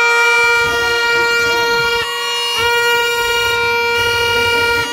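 A horn sounding in two long, steady blasts of one pitch, about two and a half seconds each, with a short break a little after two seconds in.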